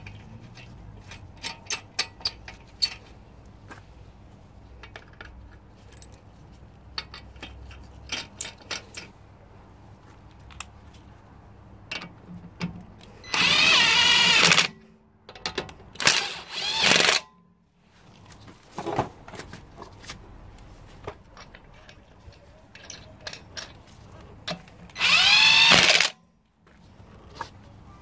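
Handheld power tool with a socket spinning wheel nuts down onto the studs in short bursts, its motor pitch rising as each run starts: one about halfway, a broken double run soon after, and one near the end. Before that, light metallic clicks of nuts being threaded on by hand.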